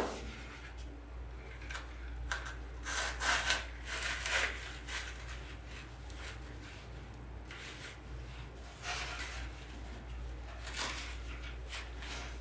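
Scratchy rubbing and rustling as a foam pumpkin on bamboo skewers is pushed and worked down into dry moss in a woven wood basket. It comes in several short spells, the loudest between about two and four and a half seconds in.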